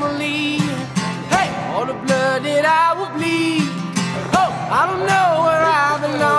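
Background music: an acoustic folk-pop song with strummed guitar, a steady beat and singing.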